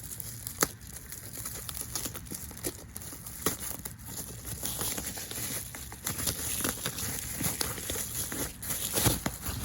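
Plastic packaging crinkling and rustling with scattered small clicks and knocks as something is unwrapped, and a louder knock near the end.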